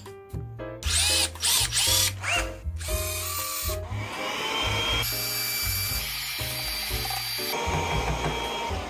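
A power drill whining up and down in several short runs as it bores into birch plywood discs. From about four seconds in, a vacuum cleaner spins up and runs steadily, sucking up the wood shavings.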